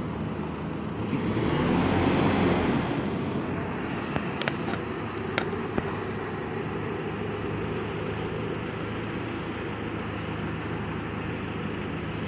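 Single-deck bus's engine cooling fan running hard with a steady whirring drone, the 'hoover' sound, over the engine's hum. The noise swells louder for a second or so about two seconds in.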